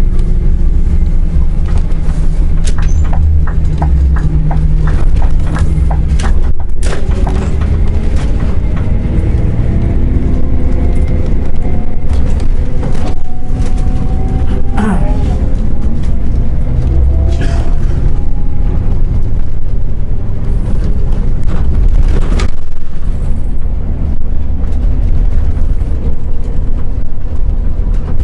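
Scania Omniexpress coach's diesel engine and road noise heard from the driver's seat as a deep, steady rumble, the engine pitch rising in stretches as the coach accelerates. Scattered clicks and knocks from the cabin run through it.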